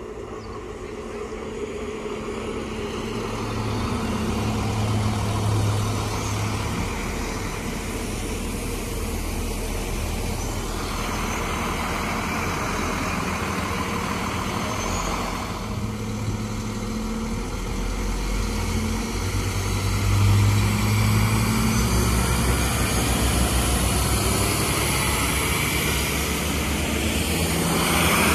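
Arriva Alstom Coradia LINT 41 diesel railcar running past at close range, its diesel engines humming, growing louder over the first few seconds as it comes near. A rushing noise swells up in the middle and again near the end.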